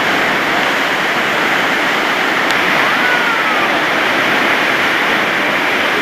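Loud, steady rush of churning white water, foaming and turbulent.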